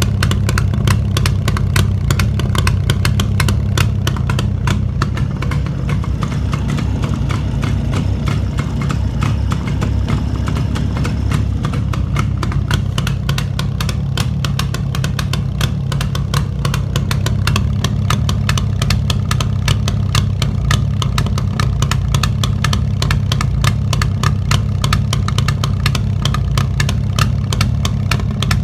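Freshly overhauled Jawa 350 two-stroke twin motorcycle engine idling steadily, its firing pulses coming rapidly and evenly.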